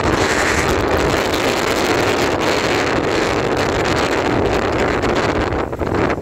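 Storm-force wind buffeting the microphone in a loud, continuous rumble, over a rough sea with waves breaking on the shore rocks.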